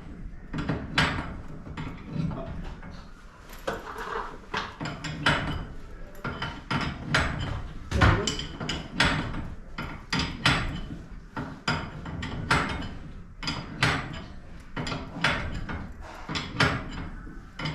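Irregular knocks and clanks of hand tools and metal hardware being worked on during a garage door spring and roller replacement, a few sharp strikes each second.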